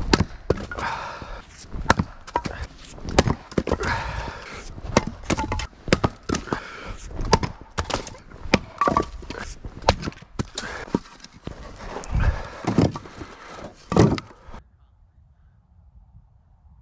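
Axe splitting firewood: a quick run of sharp chops and cracking, splitting wood, stopping abruptly about fourteen seconds in.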